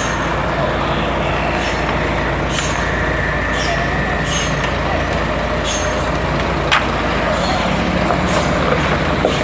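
Heavy diesel truck engine running steadily at a concrete pour, with short hissing bursts every second or two and a sharp click about two-thirds of the way through.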